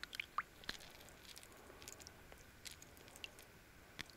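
Faint, scattered soft clicks and wet squelches of a freshly caught chub being handled in the angler's hands.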